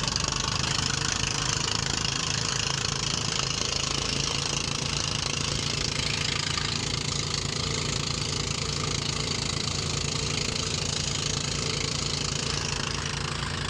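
Small fishing boat's engine running steadily under a constant hiss while trolling.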